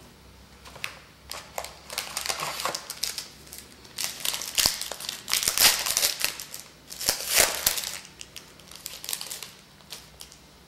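Trading card pack wrapper crinkling and crackling in irregular bursts as it is handled, loudest in the middle.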